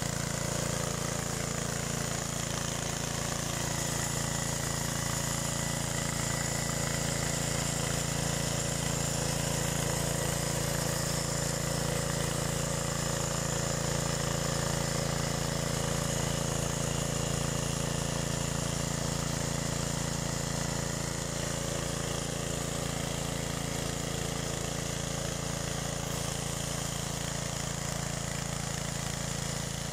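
Small petrol engine of a mini garden tiller running steadily under load as its tines dig through dry soil.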